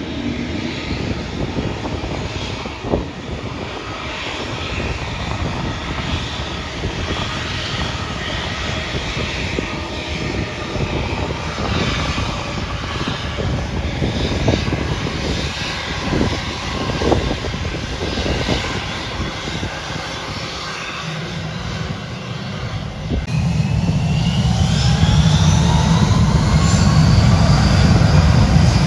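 Airbus A320 jet engines running with a steady rumble as the airliner moves along the runway. About 23 seconds in the sound grows louder and a whine rises in pitch as the engines spool up.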